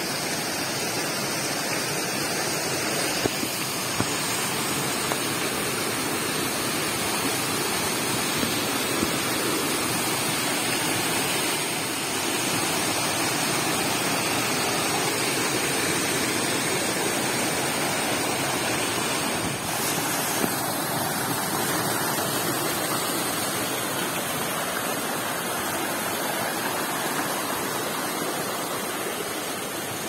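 Waterfall: a steady rush of falling water, with a few light clicks.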